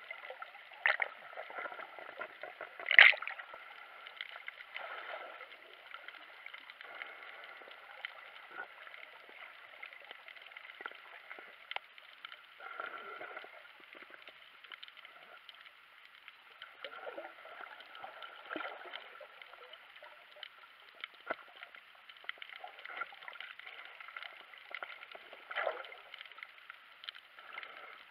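Muffled underwater water noise from snorkelling: gurgling and sloshing with scattered knocks and splashes, the loudest a sharp knock about three seconds in.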